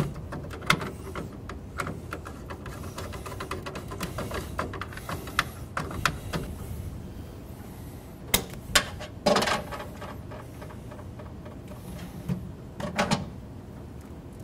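Scattered light clicks and knocks of stiff electrical wires and metal parts being handled and fitted into a two-pole breaker in a residential breaker panel. There are sharper clicks and clatter about eight to nine and a half seconds in, and again near the end.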